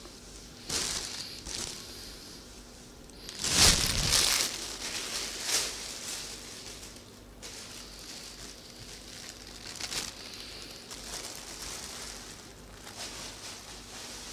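A plastic bag crinkling and tissue paper rustling as they are handled, in irregular bursts, the loudest about three and a half seconds in.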